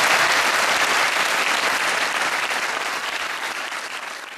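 Large seated audience applauding, a dense patter of many hands clapping that fades out gradually toward the end.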